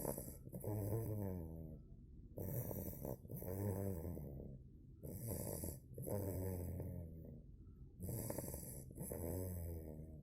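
Two-month-old Cane Corso puppy snoring in a steady rhythm, four rasping breaths in about ten seconds.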